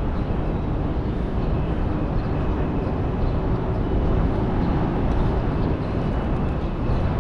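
Steady low rumble of city traffic and street ambience, an even noise with no distinct events.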